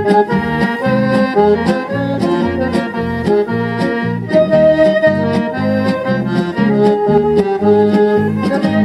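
A record playing on a Philips 528 record player through its own 6-inch speakers: instrumental music with a steady bass beat and held melody notes.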